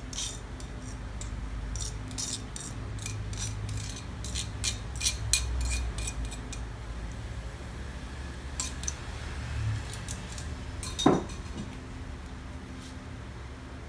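Metal kitchen tongs scraping and clinking against a ceramic bowl as sauce is scraped out over a plate, a quick run of clinks for the first six seconds or so and a few more later. One louder knock comes about eleven seconds in.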